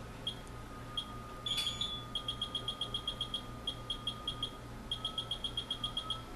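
Vitrek 952i electrical safety analyzer beeping once for each press of its arrow keys as a name is scrolled through the alphabet: short high beeps, a few single ones at first, then quick runs of about six a second, with one louder beep and click about a second and a half in.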